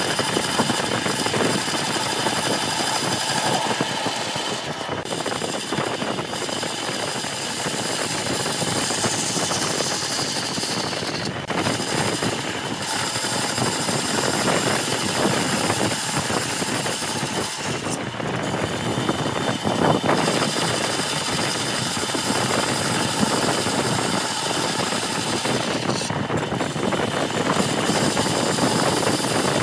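Bandsaw running and cutting through a thick wood block, a steady motor and blade noise with a cutting hiss. The hiss lets up briefly about every six or seven seconds as each of several parallel cuts is finished and the next begun.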